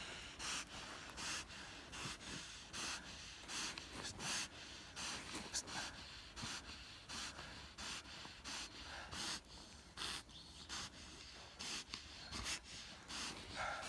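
German shepherd breathing hard through its nose in quick, even breaths, about three every two seconds, while holding a bite grip on a padded bite-suit leg.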